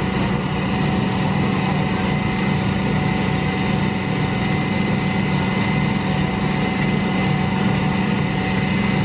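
Steady low drone of an engine running at an even speed, with a few thin steady tones riding over it.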